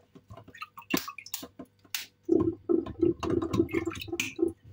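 Water sloshing and metal clinks in a stainless steel sink as boiled eggs are handled in cold water with a ladle. About halfway through comes a quick run of light taps, about four a second: a boiled egg's shell being tapped to crack it for peeling.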